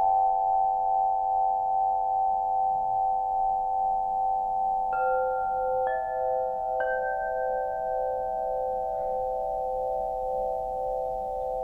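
Quartzophone crystal harp (model H2, wood frame) struck with a mallet: its quartz crystal tubes ring in long, overlapping tones that pulse gently as they blend into a chord. One note sounds at the start, then three more about five, six and seven seconds in, each adding a higher pitch over the ringing.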